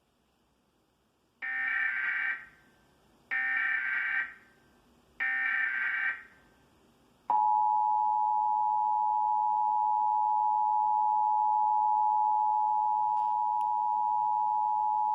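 Emergency Alert System Required Monthly Test: three short data bursts of the SAME digital header, each about a second long, then the EAS two-tone attention signal (853 and 960 Hz together) held steady for about eight seconds before cutting off.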